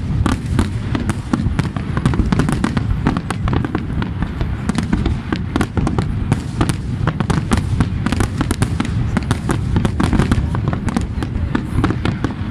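A fireworks display with many shells bursting in quick succession: a continuous run of overlapping bangs and crackles over a steady low rumble.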